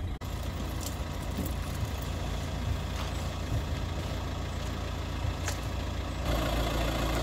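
A vehicle engine idling with a steady low hum, with a few light clicks.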